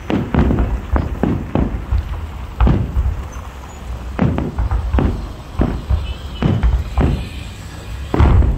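Aerial fireworks shells bursting in quick, irregular succession: about fifteen sharp booms, each trailing off in echo, the loudest near the end.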